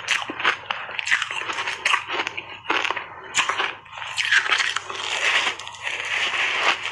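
Refrozen block ice coated in matcha powder being crunched and chewed close to a clip-on microphone: a dense run of sharp, irregular cracks as the ice breaks between the teeth, with a fresh bite into the chunk about four seconds in.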